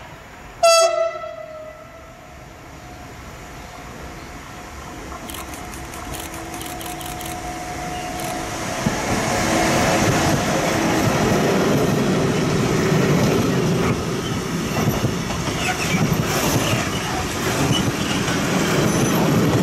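A Bombardier TRAXX MS2e electric locomotive gives one short, loud horn blast under a second in, then its container freight train approaches and passes close by. The rumble and clatter of the wagons' wheels on the rails grows louder and stays at full level from about nine seconds in as the loaded container flats go past.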